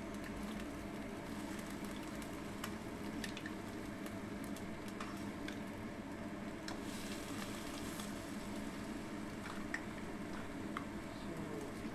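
Spaghetti with mussels and white fish sizzling and simmering in a frying pan, a steady even sizzle, with scattered light clicks as it is stirred and tossed with a silicone spatula.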